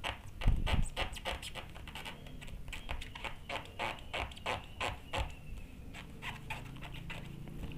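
Hand-held squeegee rubbing in quick short strokes, several a second, pressing adhesive polarizer film down onto an LCD panel's glass, with one low thump about half a second in.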